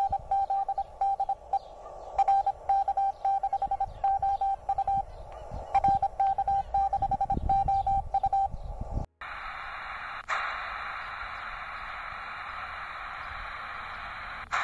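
Morse code (CW) on the 20-metre amateur band coming from the small speaker of an Amnvolt mini SI4732 receiver: a single mid-pitched beep keyed on and off in dots and dashes over faint band noise. About nine seconds in it cuts off and gives way to steady shortwave band hiss, with a click shortly after, as the receiver sits on another frequency with a wider filter.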